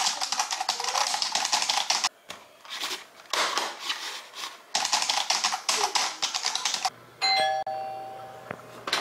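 Fast typing on a computer keyboard: dense rapid key clicks in three spells with short pauses between. About seven seconds in, a doorbell chime rings and fades away.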